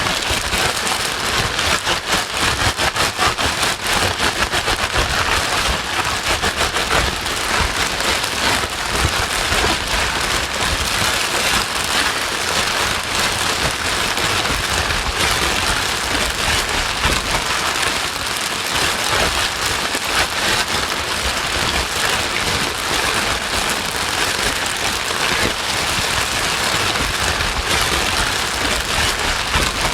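Steady white noise in the form of heavy rain: a dense, even hiss with a fine patter of drops and no change in level.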